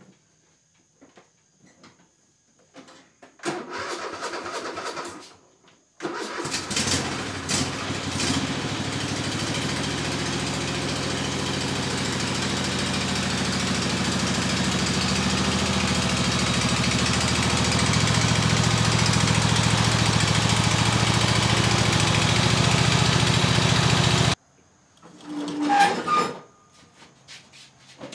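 Ariens riding lawn tractor's 25 hp engine being started: the starter cranks for about two seconds, and after a short pause the engine catches and runs steadily, slowly growing louder as the tractor comes closer. The engine sound cuts off abruptly near the end.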